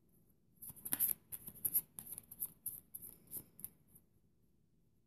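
Oracle cards being shuffled and handled: a run of quick, crisp flicks and rustles that stops a little before four seconds in.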